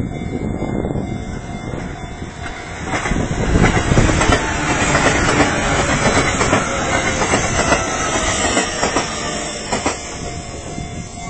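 Train passing over a level crossing: wheels clacking over the rail joints, building about three seconds in and loudest until around seven seconds, then fading. The crossing's warning bell rings steadily and can be heard again as the train fades.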